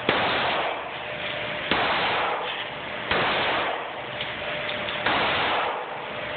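Four handgun shots, one to two seconds apart, each trailing off in a long echo inside an indoor range.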